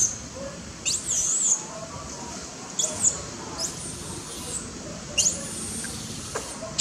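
Baby long-tailed macaque crying with shrill, wavering squeals that sweep sharply up in pitch, about four calls a second or two apart. It is a hungry infant begging to nurse from its mother.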